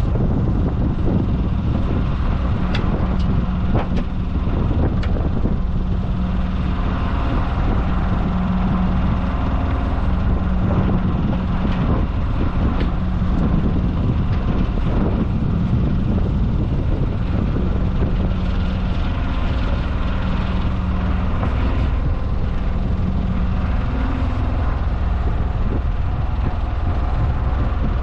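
Diesel engine running steadily with a low hum, with wind buffeting the microphone.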